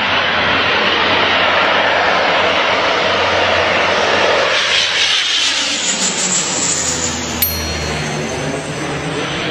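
Engines of a twin-engine Canadair water bomber flying low overhead on a firefighting water drop, loud at first, then sweeping down in pitch as it passes about five seconds in. A single sharp click comes a couple of seconds later.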